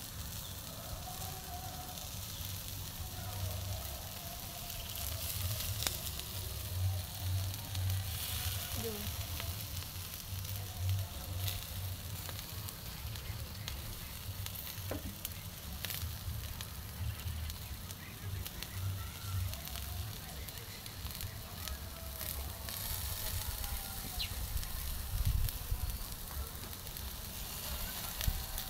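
Beef chunks sizzling on a charcoal grill grate, with a steady hiss and scattered crackling pops from the fat and coals.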